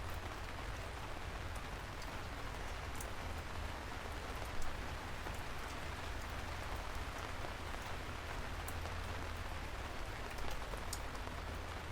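Steady rain falling, an even hiss with scattered sharp drop ticks over a low rumble, and one brief louder thump about four and a half seconds in.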